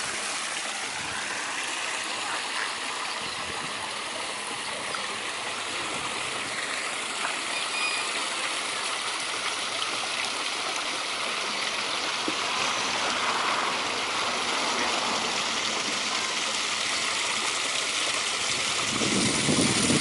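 Small waterfall splashing steadily from a rock pile into a pond, with a short burst of louder low noise near the end.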